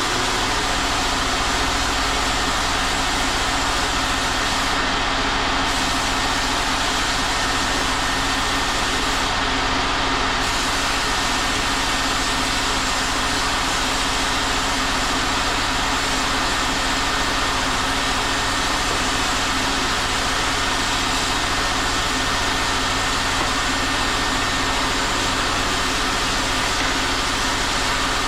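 A machine running steadily and evenly, without any change.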